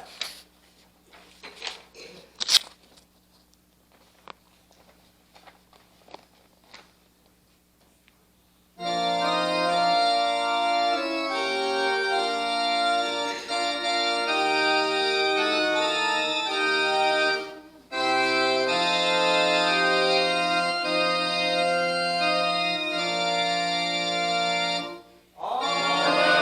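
Scattered knocks and rustling as a congregation stands and finds the hymn page. About nine seconds in, an organ starts playing a hymn introduction in sustained chords, breaking off briefly twice.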